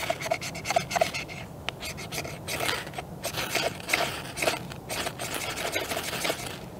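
Spine of a Manly Blaze knife's D2 steel blade scraped repeatedly along a ferro rod (fire steel), a rapid series of short rasping strokes that stops shortly before the end.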